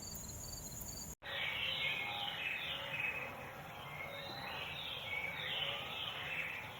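Insects trilling in a fast pulsing rhythm, cut off abruptly about a second in. Then many birds chirping and calling over one another, mostly short falling chirps.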